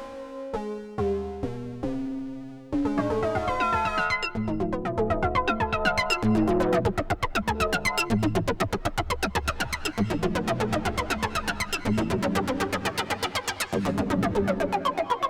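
Sequential Take 5 analog polysynth playing an FM-style patch: a few held notes at first, then about three seconds in a rapid sequenced pattern of short plucked notes over a low bass line.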